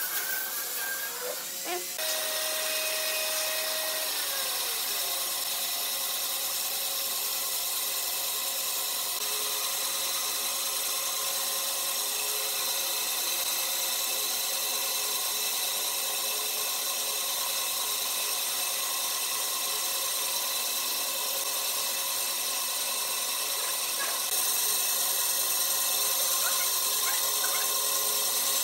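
Band saw running steadily, its blade cutting through a thick wooden slab as it is fed along a curved line. The machine sound comes in about two seconds in, with a brief tone that falls away soon after, and grows slightly louder near the end.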